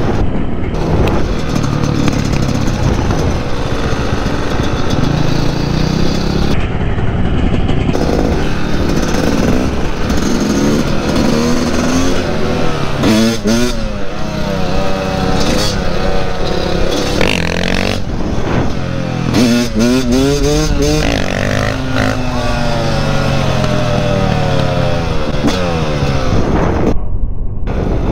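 Dirt bike engines running while riding. The engine pitch rises and falls again and again with the throttle and gear changes, and a second dirt bike runs nearby.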